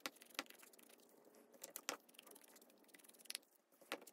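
Faint handling noises of craft supplies: a handful of soft, scattered taps and light scuffs as a foam ink blending tool is dabbed on a Distress Ink pad and paper strips and the pad are handled on a glass mat.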